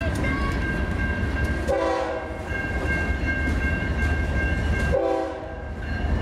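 Diesel freight locomotives rumbling past close by, their horn sounding two short blasts, about two seconds in and again about five seconds in. A steady high ringing tone runs under the passing train.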